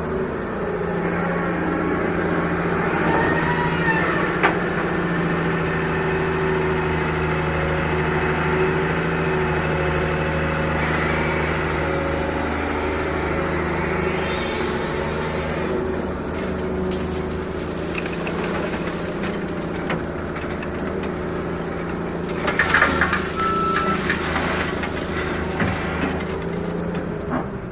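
Excavator's diesel engine running steadily under load, with a rising hydraulic whine partway through. About two-thirds of the way in comes a louder burst of rattling and knocks as the excavator works the sand and gravel.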